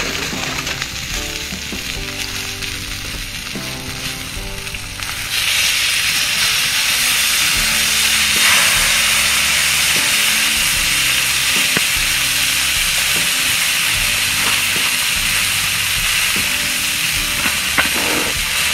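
Lake trout fillets sizzling in a pan on a campfire grate: a steady frying hiss that grows louder about five seconds in.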